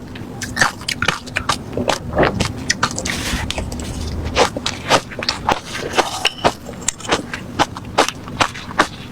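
Refrozen crushed ice being chewed close to the microphone: sharp, crunchy cracks about two or three a second, with a denser grinding stretch a few seconds in.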